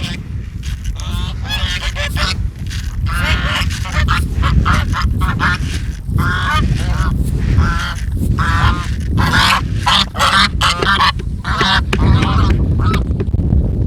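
A flock of geese honking, many short calls repeated and overlapping, over a low steady rumble of wind on the microphone.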